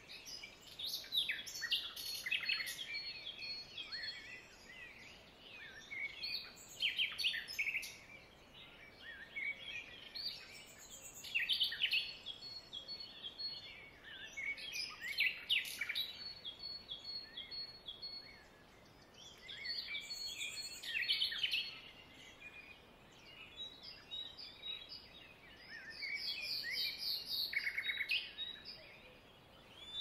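Birds chirping and trilling, with clusters of short high calls coming every second or two and a thin high note held now and then, over a faint steady hiss.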